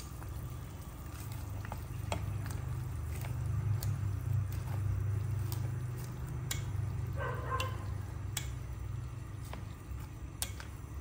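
Chopsticks stirring bean sprouts and fried tofu into a stainless steel pot of simmering sour soup, with scattered light clicks against the pot over a steady low hum.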